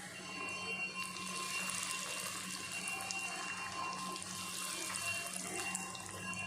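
Breadcrumb-coated pieces of set milk pudding deep-frying in hot oil, a steady sizzle.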